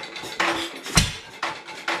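1920s 2-horsepower Headless Witte single-cylinder hit-and-miss engine running: a regular metallic click about twice a second, with one heavier, deeper thump about a second in.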